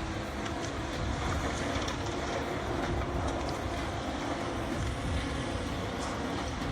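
A heavy machine's engine running steadily, a low rumble with some faint mechanical clicks.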